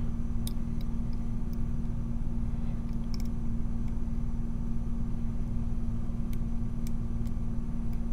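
Faint, scattered light clicks of a lock pick working the pins inside a six-pin Yale brass dimple cylinder, over a steady low hum that is the loudest sound.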